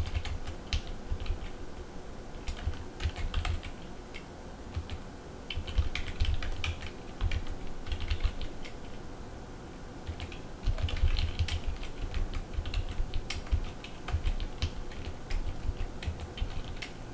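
Computer keyboard being typed on, keys clicking in quick bursts with a couple of short pauses.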